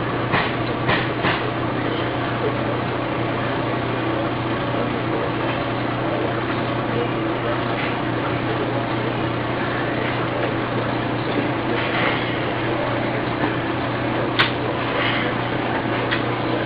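Inkjet tube printer running with a steady mechanical hum, a few sharp clicks near the start and another about two-thirds of the way through.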